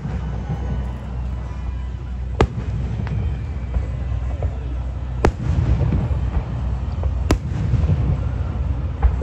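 Aerial firework shells bursting: sharp bangs every two to three seconds, over a steady low rumble.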